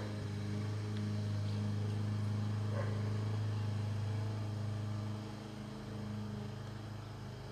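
Steady low hum of a quadcopter drone's motors and propellers, dropping in level about five seconds in.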